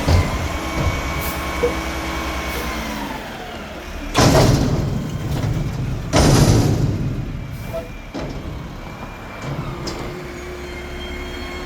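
Mack McNeilus front-loader garbage truck running, with a steady engine rumble and a faint whine. About four and six seconds in come two loud hisses of air.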